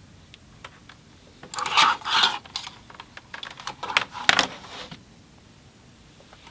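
Plastic clatter and clicks of a computer keyboard and its USB cable being handled and plugged into a docking station. The handling comes in a cluster between about a second and a half and five seconds in, with a few sharp clicks near the end of it.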